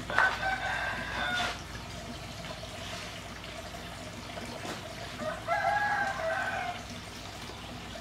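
A rooster crowing twice, each crow about a second and a half long: one at the start and another about five and a half seconds in.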